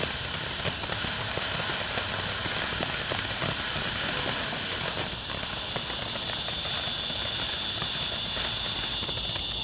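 Ground fountain firework spraying sparks: a steady hiss dotted with many small crackles.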